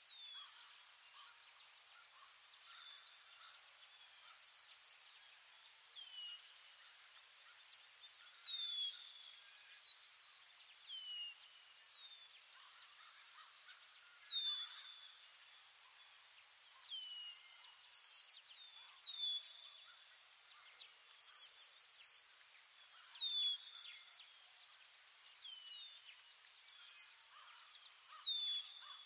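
Ambient forest soundscape: a steady, rapidly pulsing high insect trill, with short bird calls that each slide down in pitch, repeating every second or two.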